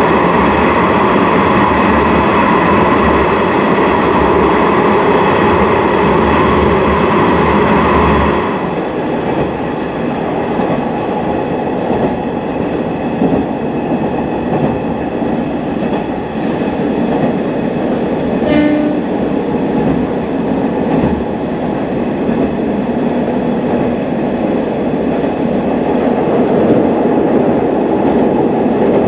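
Sanriku Railway diesel railcar running along the line, heard from inside. A steady high whine with overtones runs for about the first eight seconds and then cuts off, leaving the rumble of the running train. A brief tone sounds about two-thirds of the way through.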